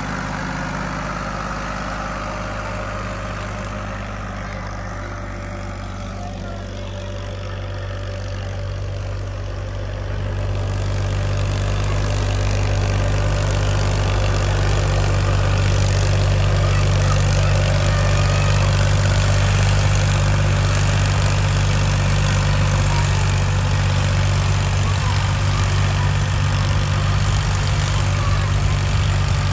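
Diesel tractor engine working under load, pulling an 18-plate disc harrow through the soil: a steady low drone that grows louder about ten seconds in.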